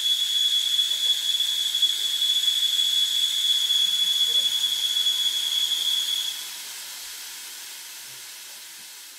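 IG55 inert-gas fire-suppression discharge rushing out through a silenced nozzle: a loud, steady hiss with a high whistle. About six seconds in, the whistle stops and the level drops, leaving a softer hiss that keeps fading.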